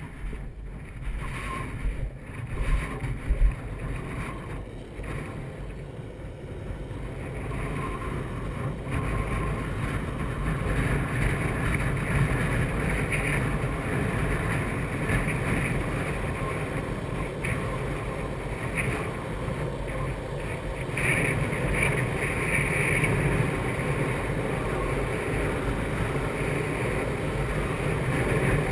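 Longboard wheels rolling on rough asphalt, mixed with wind buffeting the camera microphone; the rolling rumble grows louder after about eight seconds as the board gathers speed. A few sharp knocks come in the first few seconds.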